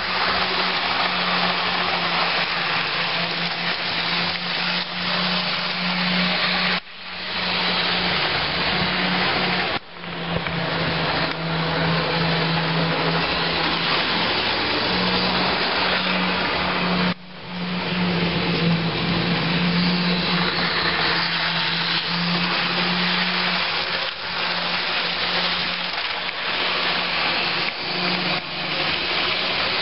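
A small electric motor, as in a power tool, running steadily with a whirring hum, breaking off briefly three times.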